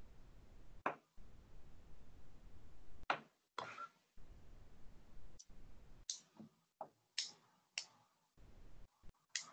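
Faint, irregular clicks and taps, about nine of them, picked up by an open microphone on a video call, with a low background hum that cuts in and out between them.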